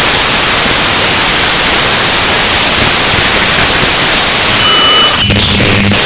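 Harsh noise music: a loud, dense wall of static hiss with no pitch. Near the end a few thin steady tones cut through, and the texture drops to a low droning hum.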